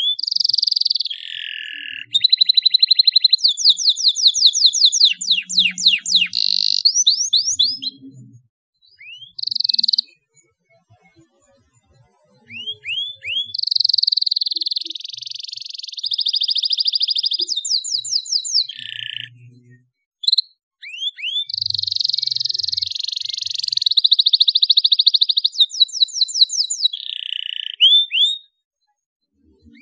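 Domestic canary singing in long phrases of fast trills and rolling repeated notes, high-pitched, broken by a pause of a couple of seconds about a third of the way in and a brief break about two-thirds in.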